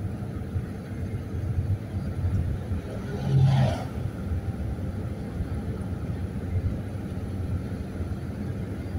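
Steady low rumble of a road vehicle's engine and tyres heard from inside while driving, with a brief louder swell about three and a half seconds in.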